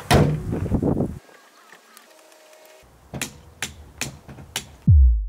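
Sharp knocks: one loud one at the start, then four more about half a second apart, followed near the end by a low sound falling in pitch that cuts off suddenly.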